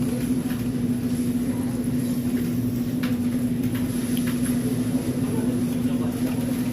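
A steady hum with one constant tone and a low rumble underneath, with a few faint clicks about three seconds in.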